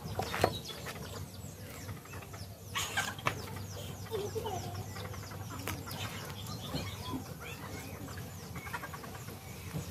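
Chickens clucking in the background, with a few sharp knocks near the start and around three seconds in.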